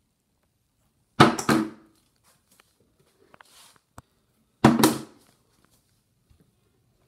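A flipped bottle landing on a hard countertop with a clattering knock, twice: about a second in it hits and bounces once, and it lands again a few seconds later.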